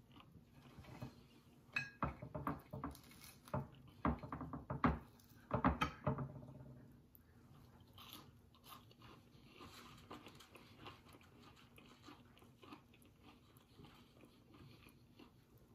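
A person chewing food: a run of short crunches and mouth clicks in the first half, loudest about four to six seconds in, then fainter, sparser chewing.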